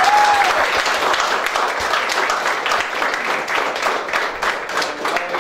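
A small crowd applauding, the clapping thinning out near the end.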